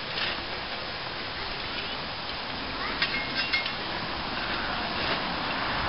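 A few sharp metallic clinks about three seconds in, with a short ring to them, as a miniature steam locomotive is pushed around by hand on a steel turntable. Under them runs a steady hiss.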